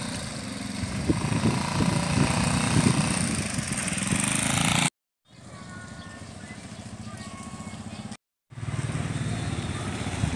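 Small motorcycle engine running with a fast, even pulse, broken off abruptly twice by brief gaps of silence. The middle stretch between the gaps is quieter.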